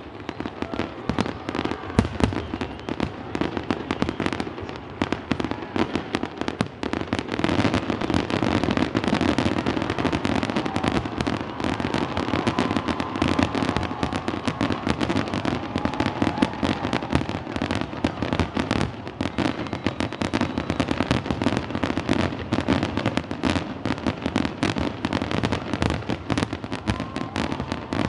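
Fireworks display: aerial shells bursting one after another with booms and crackling, thickening into a near-continuous barrage about seven seconds in.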